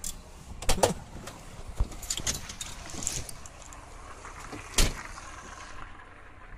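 Clicks and knocks of a car door being opened and someone getting out, ending in one loud thump about five seconds in as the door is shut.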